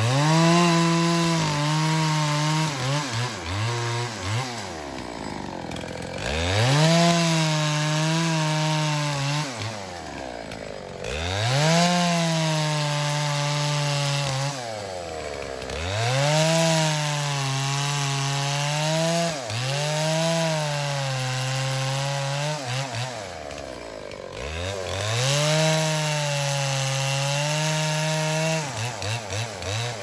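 Old Dolmar two-stroke chainsaw bucking an elm log: about six cuts, each a few seconds at full throttle with the engine pitch sagging as the chain bites into the wood, dropping back toward idle between cuts.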